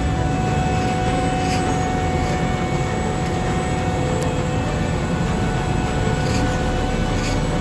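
Heavy diesel paving machinery running steadily, with a faint steady whine above the engine noise.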